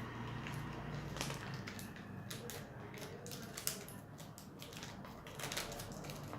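Handling of a Samsung Metro 313 feature phone: a run of small plastic clicks and taps, with one sharper tap just before the middle, over a low steady hum.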